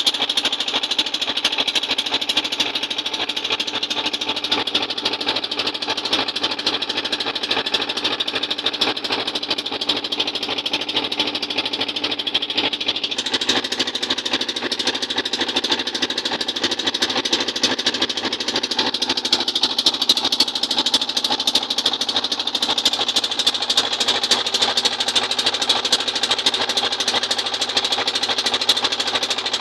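Fishing boat's engine running steadily at a fast, even chug, with a slight shift in its note about halfway through.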